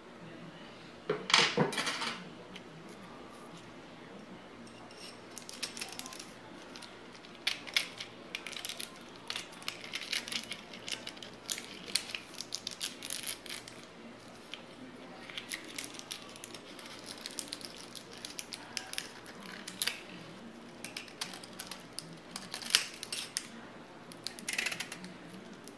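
Small metallic clicks, scrapes and rattles of an FN 49 rifle's steel parts being handled as a coil spring and its guide rod are worked out of the receiver, with a louder clatter about a second in.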